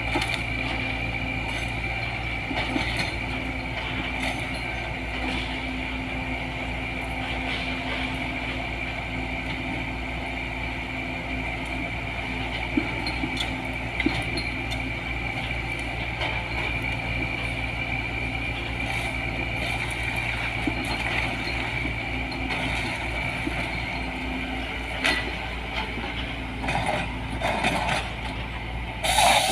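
Diesel engine of a LiuGong 915E excavator running steadily under a constant high whine, with a few sharp knocks and a louder clatter near the end.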